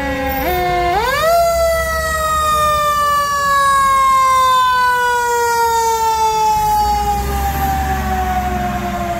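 Fire engine siren winding up about a second in, then falling slowly and steadily in pitch. A low engine rumble grows as the pumper passes near the end.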